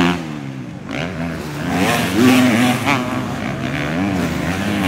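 250cc motocross bikes racing on the track, engines revving hard, their pitch rising and falling with each gear change and throttle blip.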